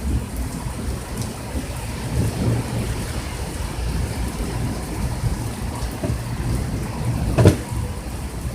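Heavy rain falling steadily, with a low rumble underneath and a single sharp knock about seven and a half seconds in.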